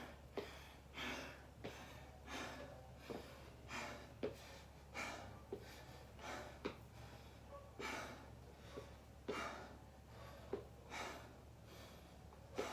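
A man breathing hard and deep, one loud breath about every second and a half, catching his breath after a set of burpees.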